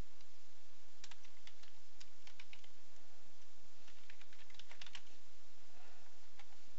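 Computer keyboard typing in two short runs of key clicks, one about a second in and another around four to five seconds in, with a couple of single clicks near the end.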